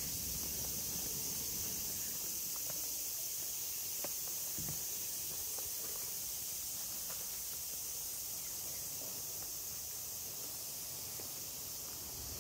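Steady high-pitched chirring of an insect chorus, with a couple of faint ticks.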